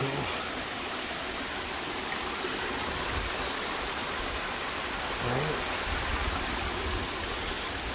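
Rocky mountain creek spilling over a small cascade: a steady rushing of water.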